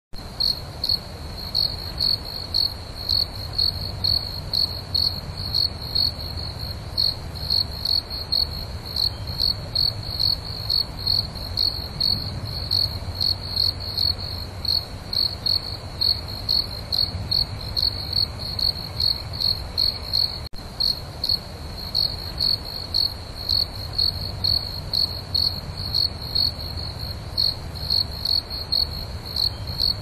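A cricket chirping steadily, a clear high chirp repeated about twice a second, over a faint low hum.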